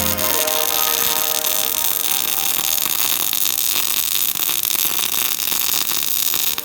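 MIG/MAG welding arc from a Kemppi X450 semi-automatic welder running steadily with an even crackling hiss, starting about half a second in as the music stops.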